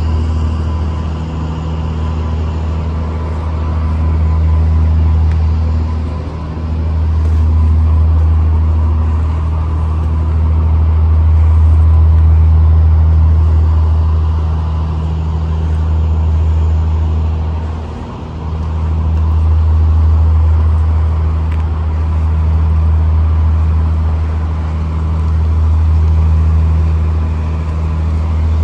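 Steady low outdoor rumble that swells and eases every few seconds, with a faint thin high tone running through it.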